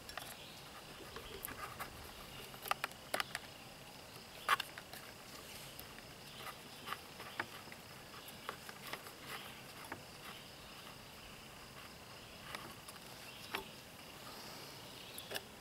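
Scattered small clicks and taps of new fuel line and carburetor parts being handled and fitted on a weed trimmer. Under them, insects chirp steadily.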